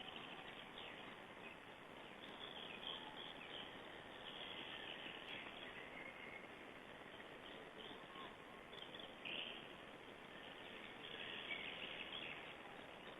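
Faint outdoor ambience picked up by a nest-camera microphone: a steady hiss with scattered brief chirps of distant small birds.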